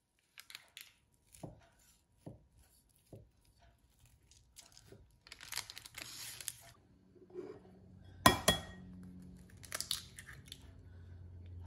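A Global chef's knife cutting down through a baked blueberry almond cake's crisp crust, crackling and rustling the parchment paper underneath, with a few soft thuds. About two-thirds through, an egg is tapped sharply twice on the rim of a glass bowl to crack it, then tapped again.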